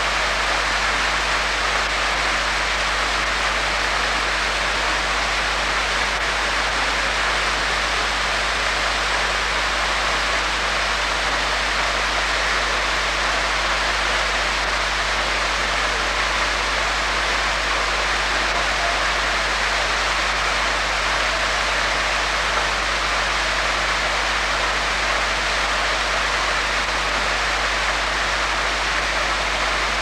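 A waterfall pouring down a rock face into a pool, giving a steady, even rushing of water.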